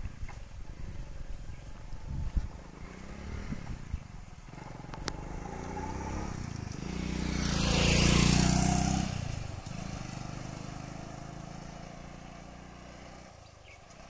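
A motorbike passes close by at a steady pace. Its engine note swells to its loudest about eight seconds in, then fades as it rides away.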